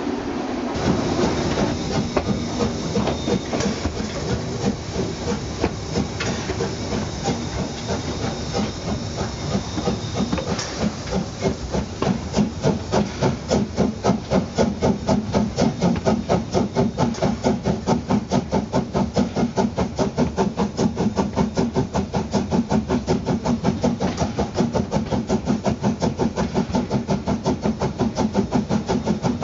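Harz narrow-gauge DR Class 99.23-24 2-10-2T tank steam locomotive working, with rhythmic exhaust beats and steam hiss, about four beats a second. The beats grow louder and more even about a third of the way in.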